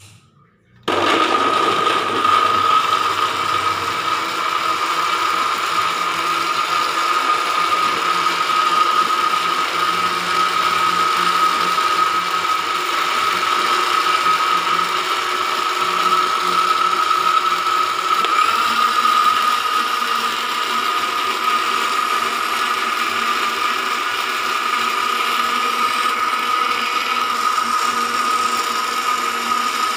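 Electric kitchen blender switched on about a second in, then running steadily at speed with a constant high whine over a gritty mechanical rattle.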